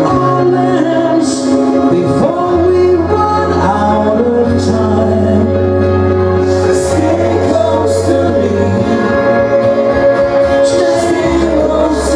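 A male singer singing live into a microphone over backing music, with held bass notes that change every couple of seconds, played through a PA.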